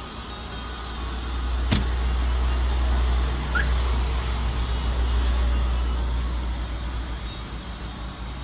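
Porsche Cayenne 958 engine idling after a remote start: a low rumble that swells for a few seconds and then eases off. One sharp click comes a little under two seconds in.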